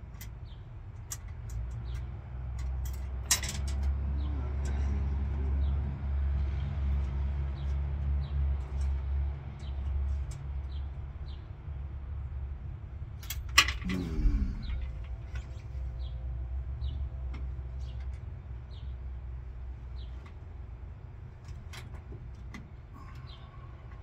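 A vehicle engine's low rumble that swells and then fades away, with two sharp knocks, one early and one about halfway through, and scattered small ticks and chirps.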